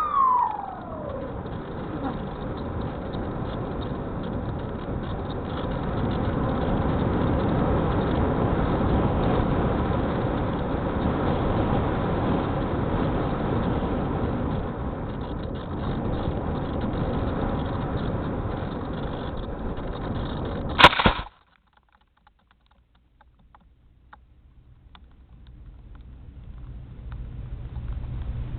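Spyhawk FPV model plane in flight: its motor's whine falls in pitch at the start, then a steady rough rush of air and motor noise. About 21 seconds in there is a sharp, loud crackle and the sound cuts out suddenly, then a low rush slowly builds back near the end.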